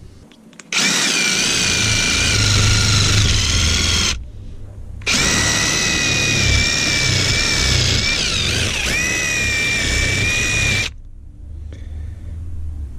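Power drill with a drill bit clearing thin rubber flanges out of a Ford Fiesta ST rear engine mount's voids. It runs twice, for about three seconds and then about six seconds, with a short stop in between. Its whine wavers and dips briefly late in the second run as the bit loads up in the rubber.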